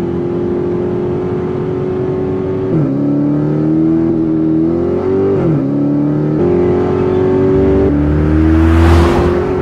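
Mercedes-AMG sedan's engine running at speed. Its pitch holds, drops abruptly a few times as if through gear changes, then climbs again, rising steadily near the end.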